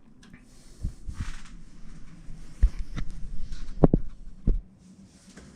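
A series of dull, low thumps and knocks, about six in all with the loudest near the middle, mixed with brief rustling.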